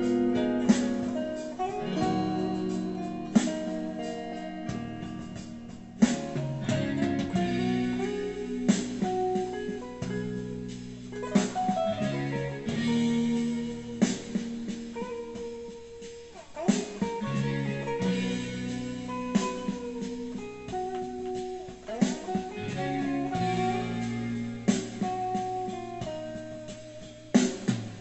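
Electric guitar playing an improvised lead line with sustained, bent and wavering notes and sharp picked attacks, over a backing track of chords and bass. Recorded through a phone, so the sound is dull and lacks top end.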